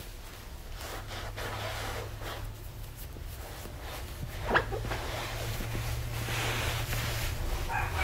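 Soft cloth rustling and handling as cotton pants are pulled onto a doll, over a low steady hum, with one brief sharp click about four and a half seconds in.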